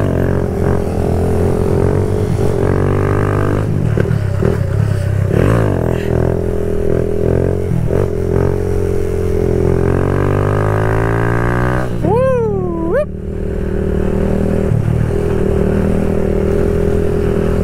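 Kawasaki Z125 Pro's 125cc single-cylinder engine, fitted with an aftermarket full exhaust, running under way as heard from the rider's helmet microphone. Its pitch shifts with the throttle, sinks gradually for a few seconds, then swoops sharply down and back up in a quick rev about twelve seconds in.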